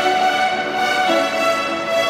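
A large ensemble of children's violins playing a piece together, bowing long held notes over shorter repeated lower notes.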